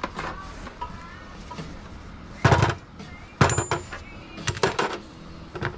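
Metal hand tools (wrenches and a ratchet) clanking as they are picked up and set down on a concrete floor: four sharp clanks about a second apart, some with a brief metallic ring.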